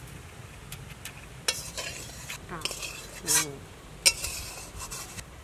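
Metal spatula scraping and clinking against an aluminium kadai as cooked curry is scooped out into a steel bowl. There are several scrapes and knocks, with a sharp knock about four seconds in.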